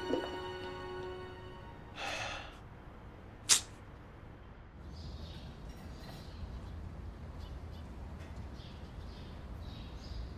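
Soundtrack music fading out, then a faint low outdoor rumble with a soft swish and one sharp click.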